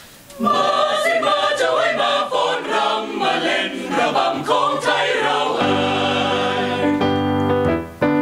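Mixed choir of women's and men's voices singing in harmony. It starts suddenly about half a second in, moves quickly from note to note, then settles into long held chords for the last few seconds.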